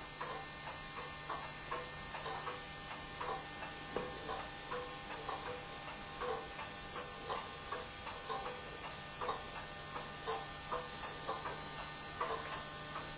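Mechanical watch ticking with an even, regular beat, each tick ringing faintly. A steady low hum lies underneath.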